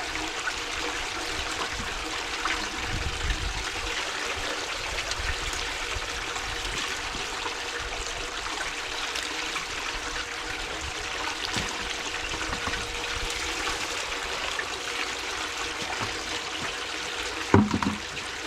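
Water running and splashing steadily, with one sharp knock near the end.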